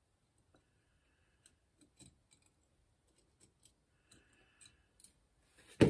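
Faint, scattered metallic clicks and ticks of tweezers and a steel pick working a tiny pawl spring into the body of a Shimano FFS front freewheel, with one louder thump near the end.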